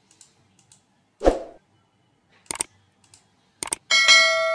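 Subscribe-button animation sound effect: a soft thump about a second in, two sharp clicks, then a bell chime that rings on and fades.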